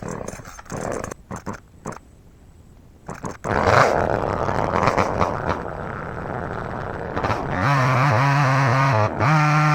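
Chainsaw starting after a few short scattered sounds, then running loud. From about seven and a half seconds it is held at steady high revs, with a brief drop around nine seconds.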